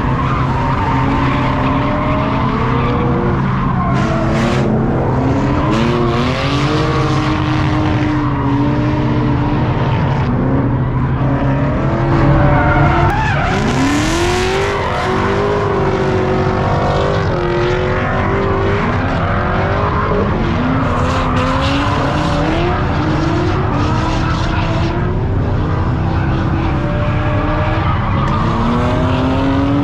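Drift cars' engines revving up and down in quick swings of pitch, with tyre squeal from cars sliding sideways. Loudest about thirteen seconds in, with one sharply rising rev.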